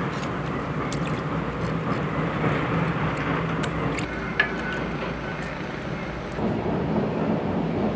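Steady low machine-like hum with faint scattered clicks over it, and one sharper click a little past the middle.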